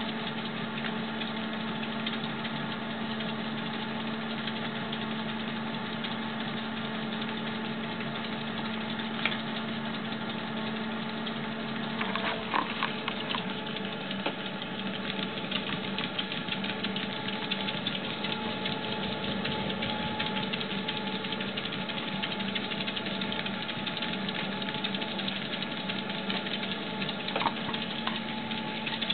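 Treadmill motor and belt running steadily with a constant hum, whose pitch shifts slightly about twelve seconds in, and a few light clicks.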